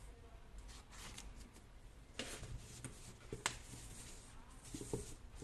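Faint handling noise: scattered clicks and rustling.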